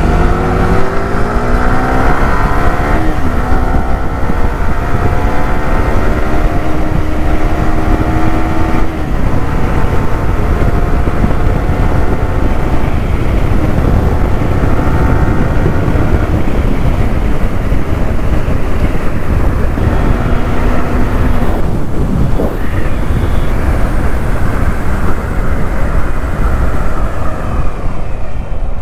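A motorcycle engine rises in pitch as it accelerates over the first few seconds, then runs on steadily. From about nine seconds in, heavy wind noise on the microphone covers most of it.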